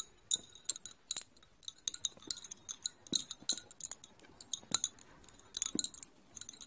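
Lace bobbins clicking against one another as they are handled, crossed and twisted while working bobbin lace: an uneven scatter of light, short clicks, several a second.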